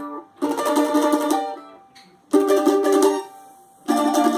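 Plucked string instrument strumming chords of a forró accompaniment, in three short phrases of about a second each with brief pauses between.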